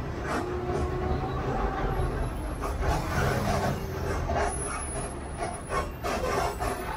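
Heavy truck traffic: the low, steady rumble of truck engines close alongside, with a run of short, sharp sounds from about two seconds in.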